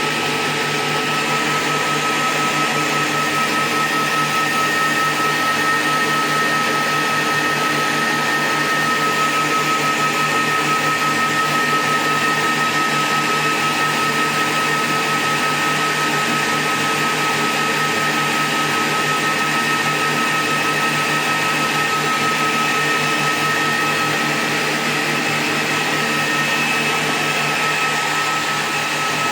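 Repaired 2000-watt power supply running on test: a steady, loud whirr, with a constant high-pitched whine and a low hum, unchanged throughout.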